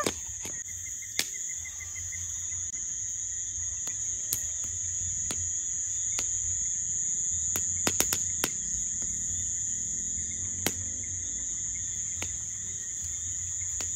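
Steady high-pitched chorus of crickets, ringing without a break, with scattered sharp clicks, a few bunched together about eight seconds in.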